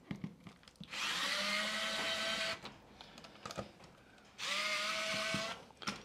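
Small electric screwdriver (Wiha speedE) running in two short bursts, the first about a second and a half and the second about a second, each a motor whine that rises quickly in pitch and then holds steady, as it backs out small screws.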